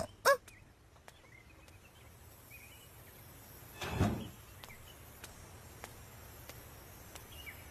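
A cartoon girl gives two short whimpers. Faint birdsong chirps in the background. About four seconds in there is a single brief dull knock as the courtyard gate is pushed.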